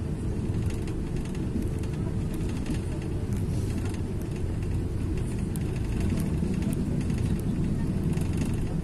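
Steady low rumble of a road vehicle driving at speed, heard from inside the cabin.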